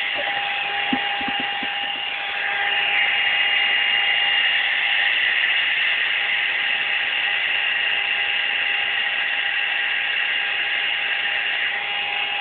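Hand-held hair dryer running steadily with a high whine, a little louder from about two seconds in.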